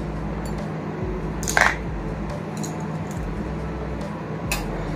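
Makeup brushes being handled in a plastic brush holder and a glass jar, their handles clattering twice, about a second and a half in and near the end, over a steady low hum.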